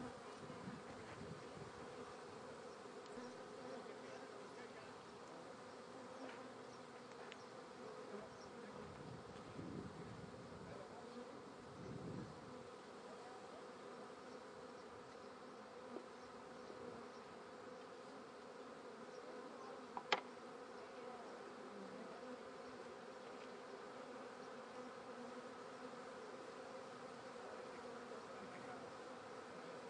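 Swarm of honeybees buzzing: a steady hum of many bees. A single sharp click about two-thirds of the way through.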